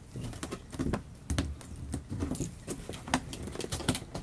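Fingers picking at and peeling a sealing sticker off a cardboard window box, with irregular small scratches, clicks and rustles of the box being handled.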